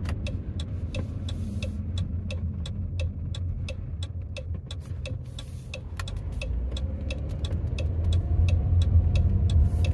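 Car's turn-signal indicator clicking steadily, about three clicks a second, over the low rumble of the engine and tyres. The rumble grows louder in the second half as the car pulls through the left turn.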